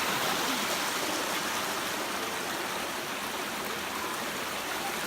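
Steady rushing of flowing water, a stream or small waterfall running continuously.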